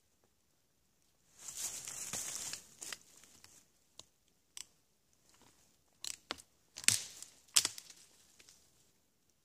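Splintery wood of a rotten stump being torn and pried apart by hand and knife to get at fatwood. There is a dense tearing crackle about a second in, then a run of sharp snaps and cracks as pieces break away. The loudest two come in the second half.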